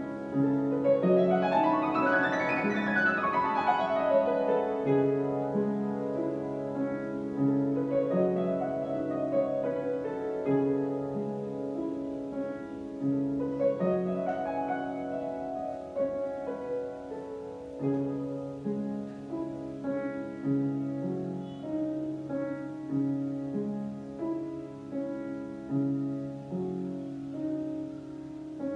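Upright piano played solo in a classical style, with low chords held under a melody. A fast run sweeps up and back down about two seconds in, and smaller runs rise and fall around eight and fourteen seconds in.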